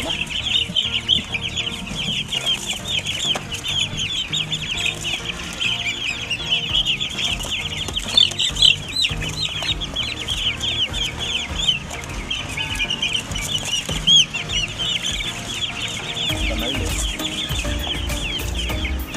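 Many young chickens peeping at once, a dense, continuous chorus of short high-pitched chirps.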